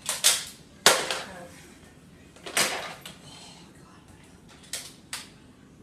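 Six sharp plastic clacks of Nerf blaster handling and firing: two quick clacks at the start, a louder knock just under a second in, a longer rasping clack about two and a half seconds in, and two lighter clicks near the end.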